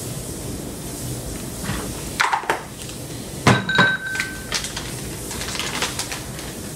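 Knocks and clinks of seasoning containers being handled on a kitchen counter: a couple of knocks about two seconds in, then a sharper clink with a short ring about three and a half seconds in, followed by lighter taps.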